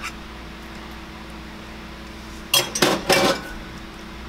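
A metal measuring cup and utensil knocking and scraping against a stainless steel mixing bowl, three or four quick clatters about two and a half seconds in, over a faint steady hum.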